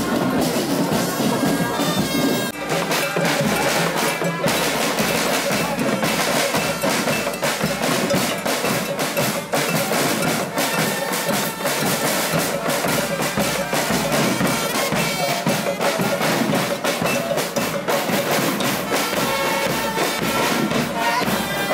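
Procession band playing: drums beaten with sticks in a rapid rhythm, with a trumpet carrying a melody over them.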